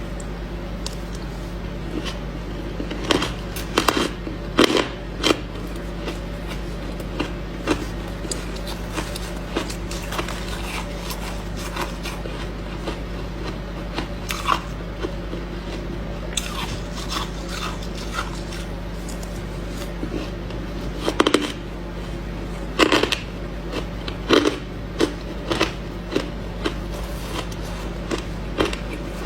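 Soft white ice being bitten and crunched close to the microphone: irregular crisp crunches and small crackles, with louder bites a few seconds in and again about two-thirds of the way through, over a steady low hum.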